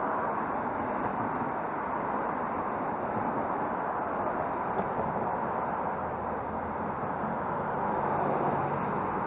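Road traffic: cars and SUVs driving past at street speed, a steady hiss of tyres and engines, swelling a little near the end as an SUV passes close.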